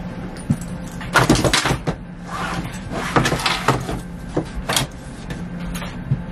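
Carry-on suitcase being lifted and shoved into an Airbus A321 overhead bin: a run of knocks and scraping rattles between about one and five seconds in, with a last knock near the end, over a steady low cabin hum.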